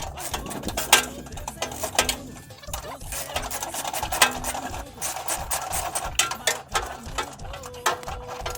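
Rapid mechanical clicking with scattered knocks from a tool working the mounting bolts of a truck-cab refrigerator as it is unbolted.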